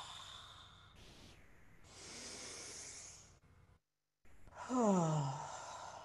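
A woman breathing audibly into a close microphone during guided breathwork: a breathy in-breath about two seconds in, then a voiced sigh on the out-breath near the end that falls in pitch as she lets go.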